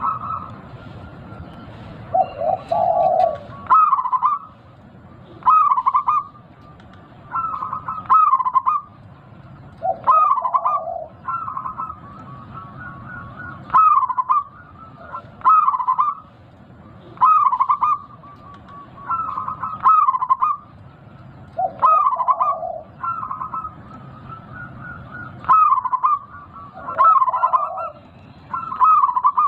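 Local zebra dove (perkutut) with a big voice singing: short cooing phrases repeated about every two seconds, some joined by a lower note.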